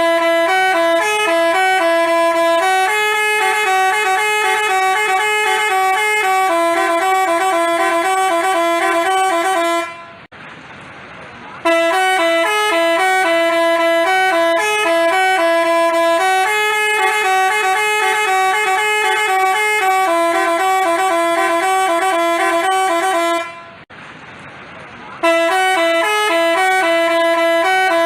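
Basuri telolet multi-tone musical horn playing a stepping melody of horn notes over and over. The melody breaks off twice for about a second and a half, once near the middle and once near the end, then starts again.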